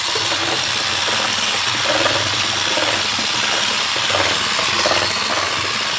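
Electric hand mixer running steadily, its beaters whisking a runny mix of beaten eggs, sugar, milk and oil in a bowl.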